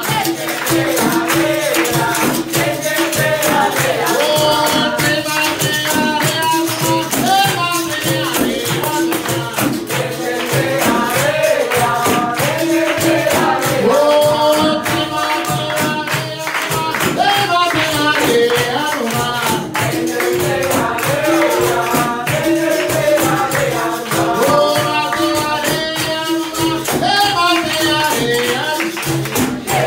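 Capoeira roda music: berimbaus, pandeiro and atabaque drum playing a steady rhythm while a group of voices sings, with hand clapping.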